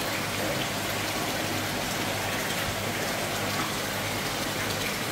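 Steady splashing of water falling into a koi holding tank, an even rain-like patter with a faint steady hum underneath.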